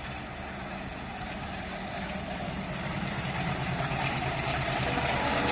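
Diesel engines of two WDM3D locomotives at the head of an express train, a low engine throb growing steadily louder as the train approaches.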